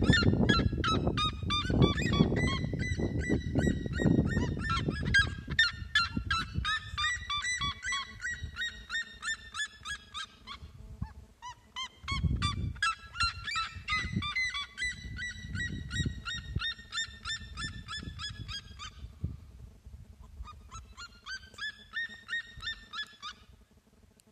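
Red-legged seriemas calling: long series of loud, rapid repeated notes in three bouts, with more than one bird calling at once, the last bout short and stopping about a second before the end. A low rumble runs underneath, heaviest in the first five seconds.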